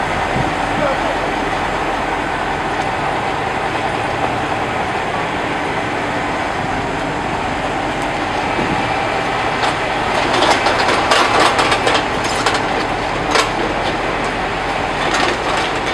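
Diesel engine of a MAZ truck-mounted crane running steadily while the crane works. A burst of knocks and clatter comes about ten to thirteen seconds in, with one more knock near the end.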